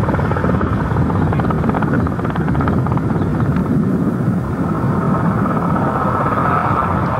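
Loud, steady aircraft engine noise, a dense rumble with no breaks.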